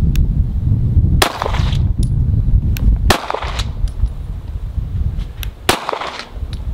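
Semi-automatic pistol being fired: three loud shots roughly two seconds apart, with fainter sharp cracks in between.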